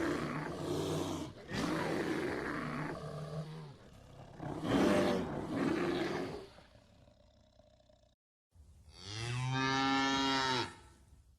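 Cattle calling: several rough, hoarse calls, then after a short break a cow's long, clear moo that rises and falls in pitch.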